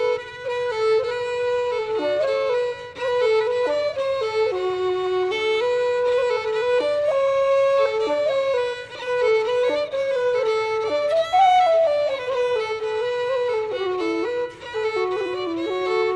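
Violin and wooden transverse flute playing a slow Irish traditional waltz, a flowing melody of connected notes with the violin most prominent.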